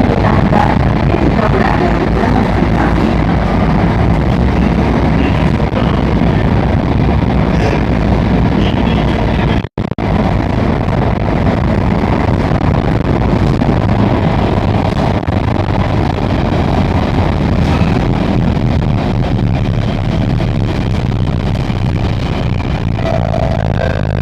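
Circle Line MRT electric train running through the tunnel, heard from inside the carriage: a steady, loud rumble of wheels and running gear. The sound cuts out for an instant about ten seconds in, and a steady whine joins the rumble near the end.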